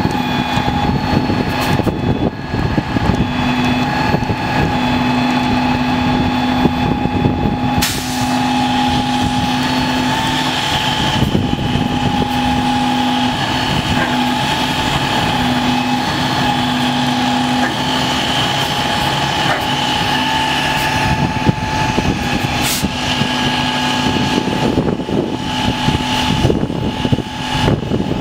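Diesel engine of a heavy rotator tow truck running steadily during a recovery, with a steady whine over it; the lower hum drops out and comes back several times.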